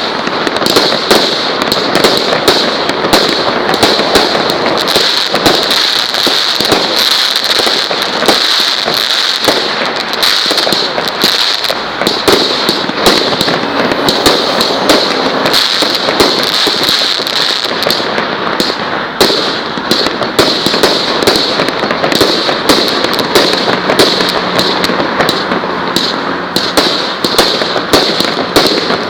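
Fireworks going off in a rapid, unbroken stream of bangs and pops.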